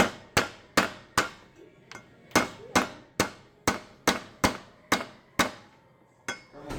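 A spoon knocked again and again against the rim of a pot: sharp, ringing taps about two or three a second, with a short pause about two seconds in.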